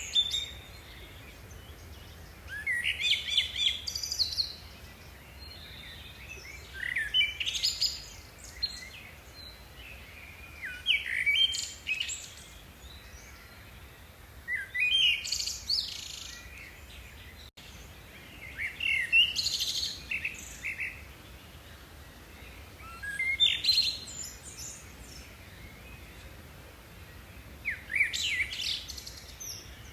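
A songbird singing the same short phrase over and over, about once every four seconds, each phrase a quick run of high notes lasting a second or so.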